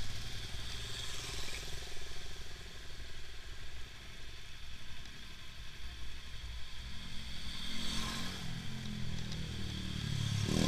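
Motorcycle engines running at low speed as bikes ride past one by one. The engine hum grows louder in the last few seconds as another motorcycle comes up close, with a brief rise in pitch near the end.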